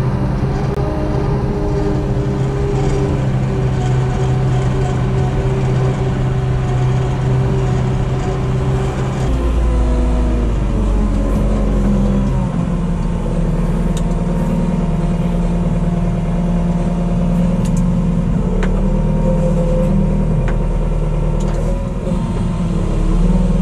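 Manitou 733-115 telehandler's diesel engine running, heard from inside its cab while it drives with a loaded bag on the forks. The engine note changes about nine seconds in and then holds steady at a new pitch.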